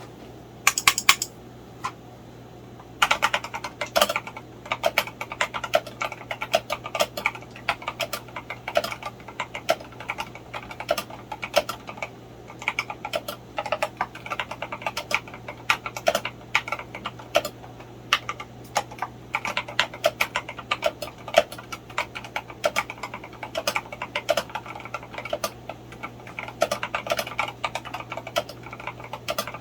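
Typing on a Tester68 mechanical keyboard fitted with linear frankenswitches (NK Dry Yellow housings, Redragon red box stems, 68 g gold-plated springs): a few keystrokes about a second in, then continuous fast typing from about three seconds on. A steady low hum runs underneath.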